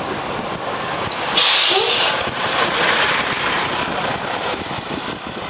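Road and wind noise of a moving car heard from inside the cabin, with a sudden loud hiss about a second and a half in that lasts under a second.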